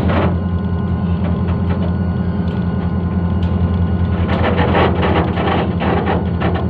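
Diesel-electric locomotive engine running with a steady low drone as the goods train rolls slowly, with a light rattling and clanking that grows louder about four seconds in.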